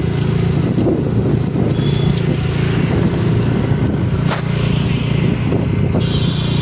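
A steady low engine drone, like a motor vehicle running, with wind noise over it and a single sharp click about four seconds in.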